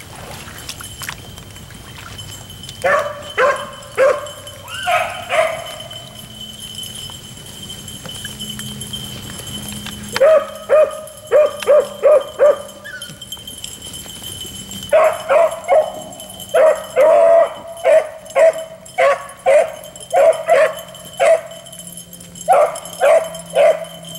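Hunting beagles baying on a rabbit's scent trail: short, repeated bawls. A few come about three to five seconds in, then a quick run of them near ten seconds, a brief pause, and a near-steady string of bawls from about fifteen seconds on.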